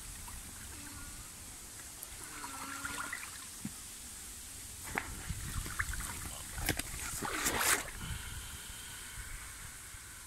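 Gentle river water trickling and sloshing around an inflatable vinyl pool float, with scattered clicks and rustles from handling and a short rushing splash about seven and a half seconds in.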